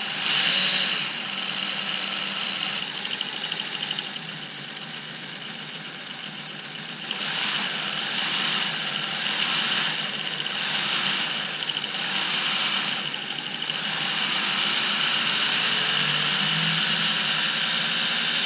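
Homemade PVC model V6 engine running on its small electric motor, the belt-driven pulleys and fan spinning with a steady high whine. It drops back a little, then swells and eases about once a second, and settles into a steady, louder run near the end.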